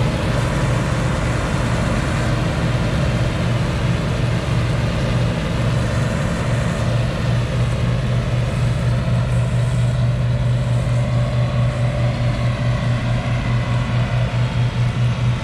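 New Holland 8060 combine harvester running while it harvests grain: a steady, loud, low engine drone with machinery noise above it. The sound takes on a regular pulsing in the second half.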